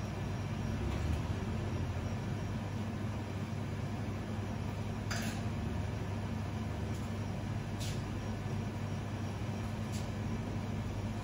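Steady low mechanical hum of cafe equipment, broken by a few light clicks about five seconds in, near eight seconds and once more near ten.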